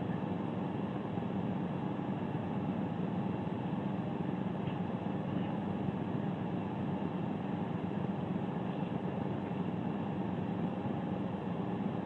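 Steady low hum with hiss, unchanging throughout: background machine or room noise.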